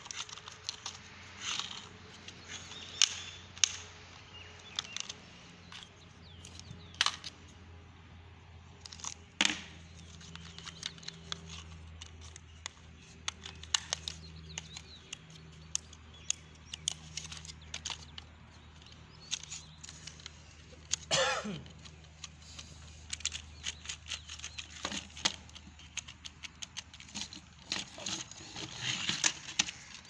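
Hard plastic toy loader being handled and turned over: scattered clicks, knocks and rattles of plastic parts, with one longer scrape about two-thirds of the way through. A faint steady low hum runs underneath.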